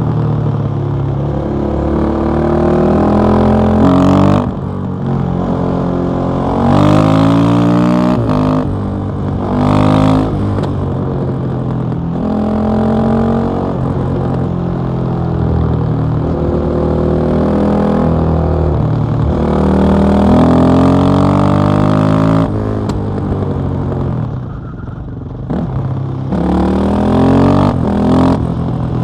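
KTM 660 SMC's single-cylinder LC4 engine through an Akrapovic exhaust, ridden hard: it revs up through the gears with pitch climbing, then drops back at each shift or throttle-off, several times over.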